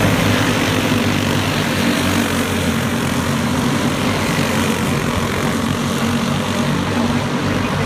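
A pack of racing go-karts' small engines running at racing speed around a dirt oval, a steady drone of many engines at once.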